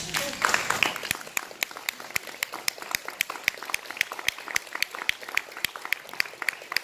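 A small audience clapping. It is densest and loudest in the first second, then thins to separate, uneven claps at a few per second.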